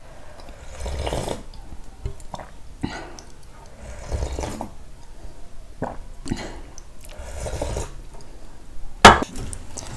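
Close-up eating sounds: buffalo-leg soup slurped and food chewed in several short spells, with a sharp clink of a spoon or dish about nine seconds in.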